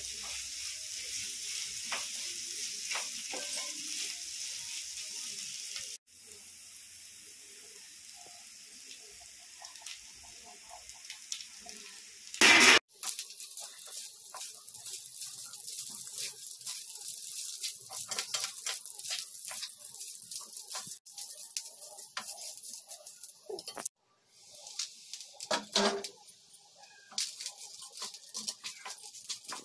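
Onion, grated coconut and curry leaves sizzling in a frying pan as they are stirred, the hiss loudest in the first few seconds. Near the middle comes one short loud rush. Later a wooden spatula scrapes and turns cooked rice through the mixture, with many quick scraping clicks.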